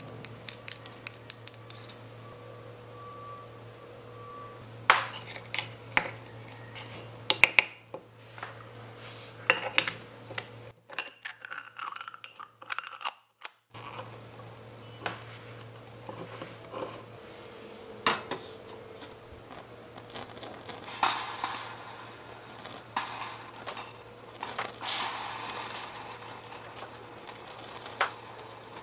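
Scattered small metal clinks, taps and scrapes of tiny utensils against a miniature aluminium pot and its lid.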